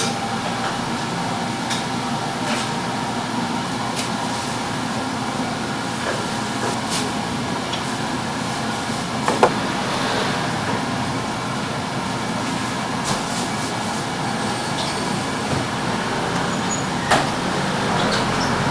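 Steady machinery noise runs throughout, with a handful of sharp knocks and taps from wooden tools and a wooden mold frame handled on a steel table.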